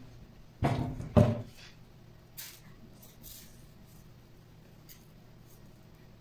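Objects being handled on a craft table: two sharp knocks less than a second apart, the second louder, followed by a few faint rustles of plastic packaging.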